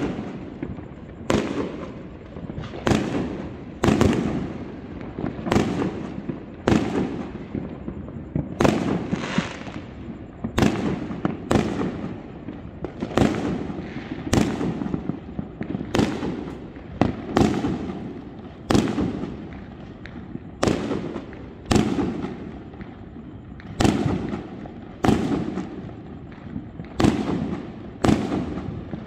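Aerial fireworks bursting in a steady run of about twenty bangs, roughly one every second or so, each trailing off before the next.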